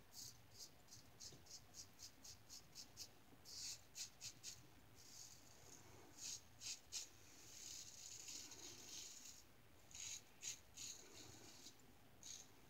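Safety razor blade scraping through lather and stubble on the neck in short strokes, faint: a quick run of about four strokes a second, then small clusters of strokes with pauses between. The razor is a GE Jones Shake Sharp MK2 fitted with two stacked Wizamet blades.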